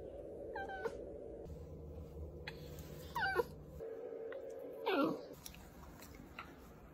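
Irish Terrier puppy giving three short, high-pitched whines, each falling in pitch, about a second in, at about three seconds and again at about five seconds.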